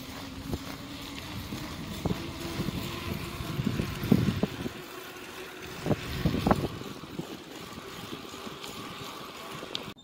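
Riding a bicycle on an asphalt path: wind buffets the microphone in gusts over the steady rolling noise of the tyres.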